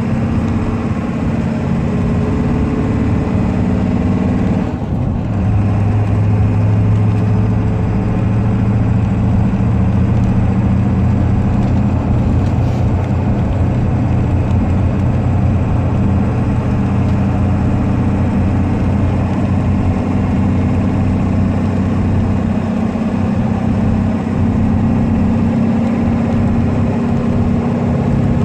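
Ford 7.3 L Powerstroke turbo-diesel V8, fitted with Stage 1 injectors and a mild tune, heard from inside the cab while towing a trailer of about 7,000 pounds. About five seconds in the sound dips briefly as a gear is changed on the five-speed manual, then the engine pulls steadily and louder under load.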